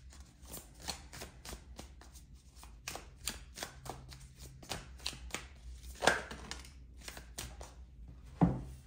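A deck of tarot cards shuffled by hand: a quick, uneven run of card flicks and slaps. There is a louder slap about six seconds in, and another near the end as cards drop out of the deck onto the table.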